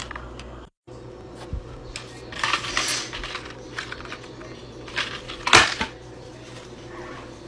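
A woman sneezing: a rough, noisy sneeze burst about two and a half seconds in, then the loudest, sharpest sneeze about five and a half seconds in.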